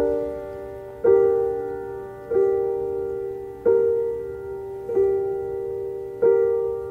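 Piano playing a slow instrumental passage of a recorded ballad: a chord struck about every 1.3 seconds, each left to ring and fade before the next.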